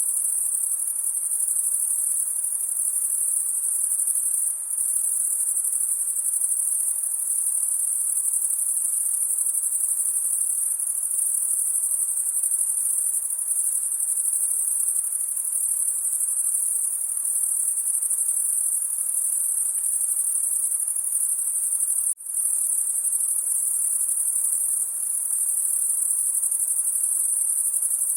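A dense, steady chorus of crickets chirping at night, high-pitched and unbroken. It cuts out for a split second about three-quarters of the way through.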